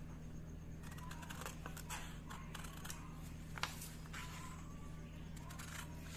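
Tailoring scissors snipping through a single sheet of paper pattern, a series of short crisp cuts with paper rustling, one sharper click about three and a half seconds in, over a steady low hum.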